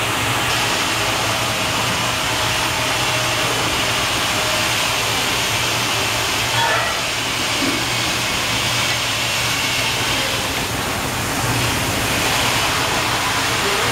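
Large oil-hydraulic heat press running: a steady mechanical hiss with a constant low hum underneath.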